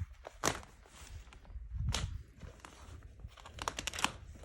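Packaging being torn and crinkled open by hand, in sharp rips about half a second in, near two seconds, and a quick cluster near the end.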